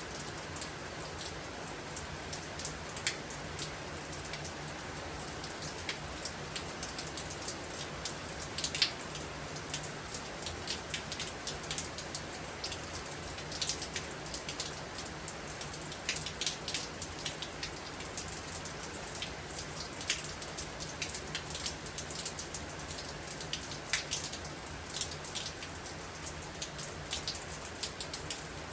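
Steady rain during a storm, with a continuous hiss and many individual drops striking a hard surface in sharp, irregular ticks.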